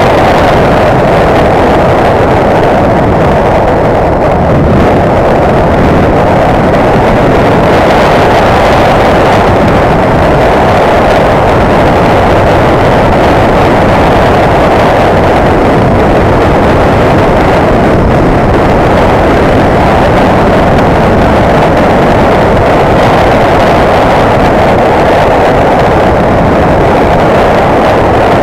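Motorcycle riding along at a steady speed, its engine noise mixed with wind rushing over the microphone. The sound is loud and steady, with no change in pace.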